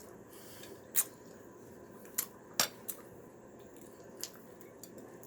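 Eating utensils clinking against plates and dishes, about five sharp clicks spread over a few seconds over a low background.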